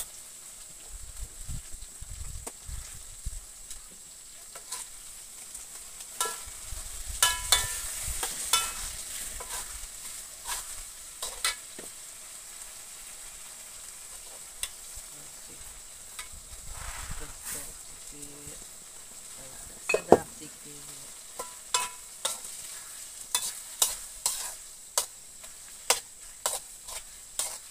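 Metal spatula scraping and clinking against a wok while anchovy chilli sambal (sambal ikan bilis) sizzles in hot oil. There are many sharp knocks, some ringing briefly, and the loudest comes about two-thirds of the way in.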